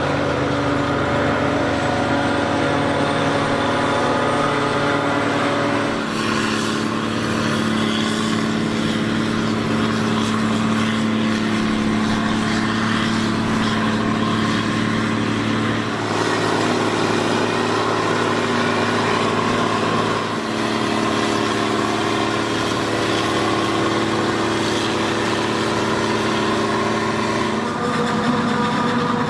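John Deere 7400's diesel engine running steadily under harvest work. Its pitch and tone shift abruptly a few times.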